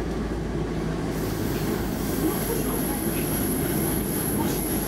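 Stockholm Metro C14 train car under way, heard from inside the passenger car: a steady low rumble of wheels on rail. About a second in, a thin high-pitched wheel squeal sets in and holds.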